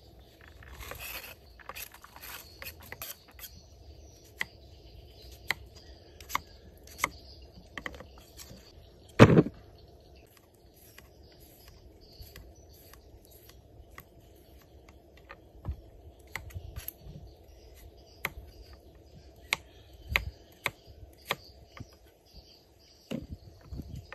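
A kitchen knife scraping against fruit flesh and the wooden chopping block, followed by irregular crisp clicks of a blade cutting into a raw carrot. A single loud thump comes about nine seconds in.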